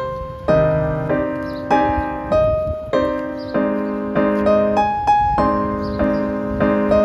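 Background piano music: chords struck about every half second to second, each one ringing and fading before the next.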